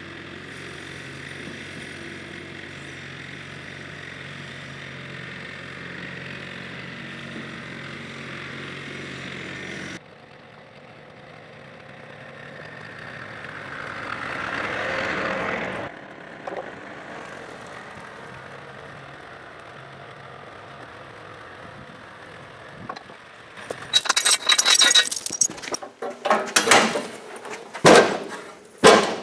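A machine runs with a steady hum and then cuts off abruptly. An abrasive cutoff saw then grinds into steel pipe with a rising, gritty noise; its worn-down wheel is struggling to cut through 2 3/8 pipe. Near the end come several loud metal clanks and knocks.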